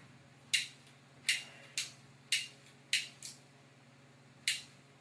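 Dry-erase marker scratching across a whiteboard in a series of about seven short, sharp strokes, the last a little over a second after the rest, over a steady low electrical hum.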